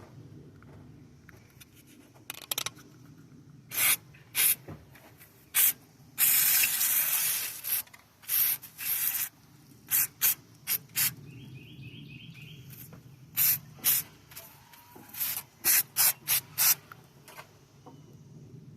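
Aerosol lubricant spray can hissing in many short squirts and one longer spray of about a second and a half, oiling the hood latch.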